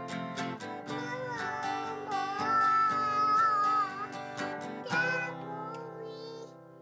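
Music with a steady beat and a melodic line, fading out near the end.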